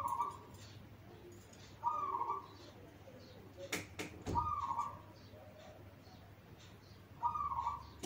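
Zebra dove (perkutut) cooing: four short phrases of its song about every two and a half seconds. A few sharp clicks sound just before the third phrase.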